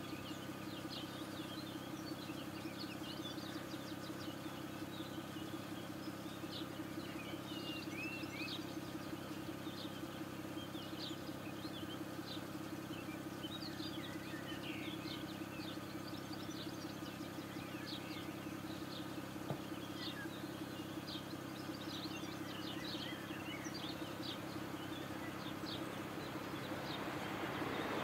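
Birds chirping over the steady low hum of a car engine idling. Over the last couple of seconds the rushing noise of an approaching train rises.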